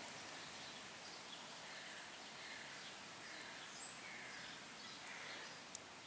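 Quiet forest ambience: a faint steady hiss with distant bird calls here and there, including one short high chirp a little before four seconds in.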